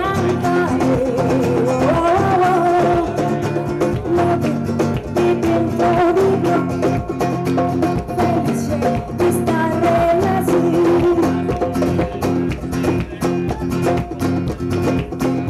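Live band music: guitars and percussion keeping a steady beat, with a singing voice over them.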